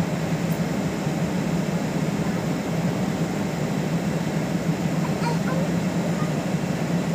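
Electric multiple unit standing at the platform, its onboard equipment giving a steady low hum under a wash of noise.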